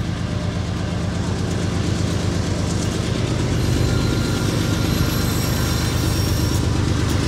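BNSF diesel locomotives hauling a grain train approaching, their engines giving a steady low rumble that slowly grows louder.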